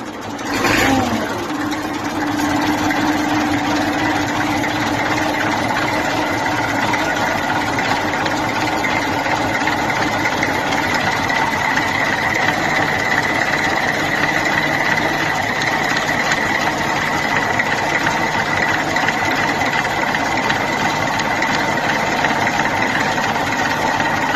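Perkins A6.305 six-cylinder diesel of an EBRO 684E tractor, fitted with a positive-displacement supercharger, surging briefly about a second in and then running at a steady speed. A steady high whine sits over the engine note.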